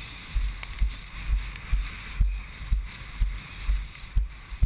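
Strong storm gusts buffeting an action camera's microphone: irregular low rumbling blasts, about two a second, over a steady hiss of wind.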